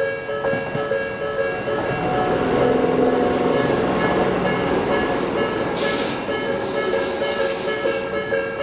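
Japanese level-crossing warning bell ringing in rapid alternating two-tone dings while an electric commuter train rolls through the crossing. The train noise swells from about a second and a half in and fades near the end, with a brief sharp hiss about six seconds in.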